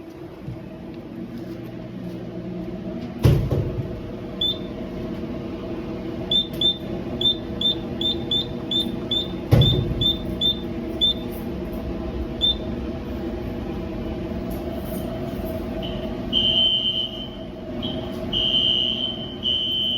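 Simplex 4100ES fire alarm panel's buzzer sounding a string of short high beeps, about three a second, then longer held tones with short breaks near the end, which may be a testing-complete signal. A steady hum runs underneath, with two sharp knocks.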